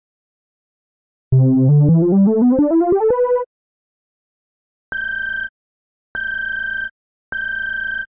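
Synthesized electronic tones: a quick run of notes climbing in pitch and speeding up, followed by three identical steady beeps, each about half a second long and a little over a second apart.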